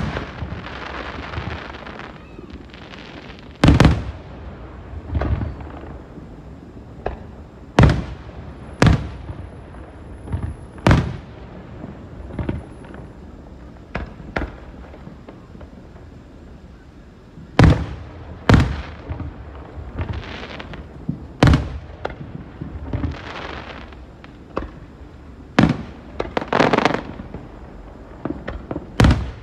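Aerial fireworks shells bursting: about a dozen sharp booms at irregular intervals, with a crackling hiss that comes and goes between some of them.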